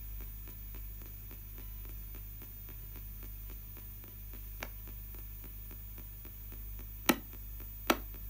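ITC Research spirit box radio sweeping the AM band in reverse: steady static and hum chopped into rapid ticks several times a second as it jumps from station to station. Two sharp, loud clicks come near the end.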